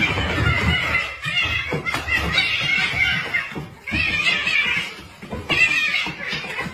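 People laughing and talking over one another.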